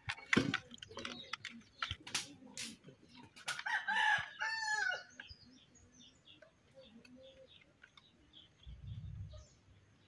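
A rooster crows once, about four seconds in, after a few sharp clicks and knocks.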